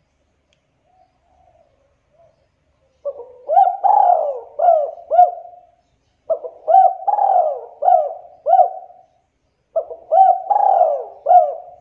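Spotted dove cooing: three repeated phrases of several rising-and-falling coos, each phrase about two and a half seconds long, starting about three seconds in, after a few faint soft notes.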